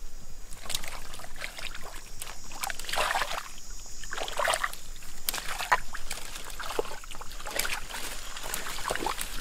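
Muddy water sloshing and splashing in irregular bursts as hands grope through shallow mud and legs shift while wading.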